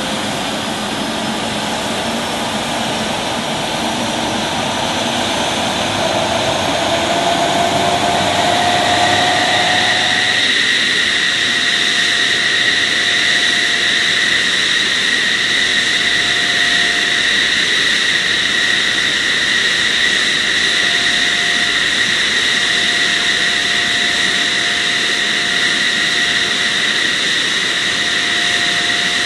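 TUSAŞ MMU fighter's twin General Electric F110 turbofan engines running with a loud jet rush. A whine rises in pitch from about six to ten seconds in as the engines spool up, then holds as a steady high whine.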